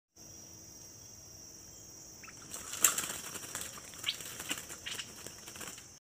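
Bird wings flapping in and against a hanging wire cage, a busy rustling run with one loud beat, starting about two and a half seconds in, mixed with a few short bird chirps. A steady high hiss sits underneath until the flapping begins.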